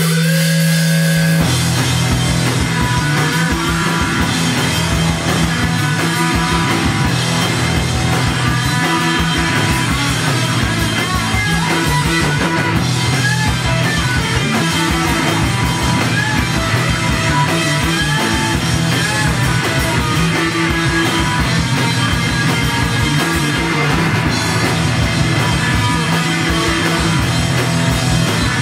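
Rock band playing live: electric guitar, bass and drum kit, loud and steady, with the full band coming in about a second and a half in.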